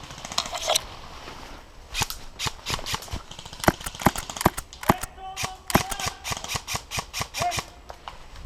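Airsoft gunfire: an irregular run of sharp cracks and clicks, several a second, starting about two seconds in.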